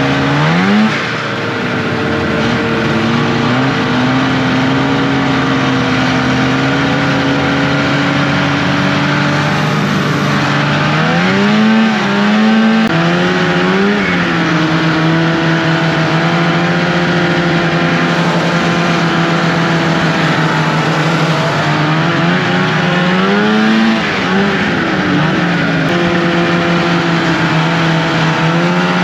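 A vintage snowmobile's two-stroke engine running under way. It holds a steady speed, and the revs climb and settle again a few times.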